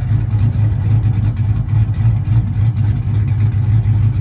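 A 5.7 HEMI V8 pickup idling, heard at the tailpipe. The deep exhaust note swells and dips in a steady, lumpy pulse.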